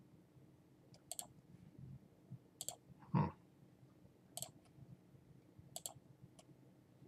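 Computer mouse button clicking four times, about one and a half seconds apart, each a quick press-and-release pair, as transactions are ticked off one by one. A short dull thump about three seconds in is the loudest sound.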